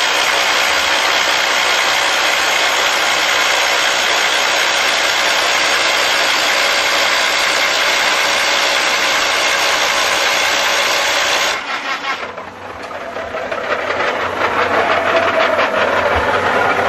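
Hydraulic rock drill on a DT1-14 face drilling rig's boom, hammering a drill rod into a rock face with a loud, steady, dense rattle. About twelve seconds in the sound drops away suddenly, then builds back up into a rapid hammering.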